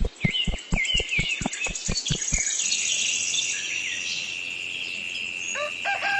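Crickets and birds chirping in a steady background of insect song. Over the first two and a half seconds a rapid, even run of knocks sounds, about five a second. Near the end a short pitched call begins.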